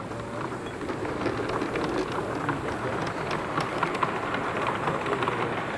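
Gauge 3 model train running past on the track, its wheels making a rapid, irregular clatter of small ticks on the rails.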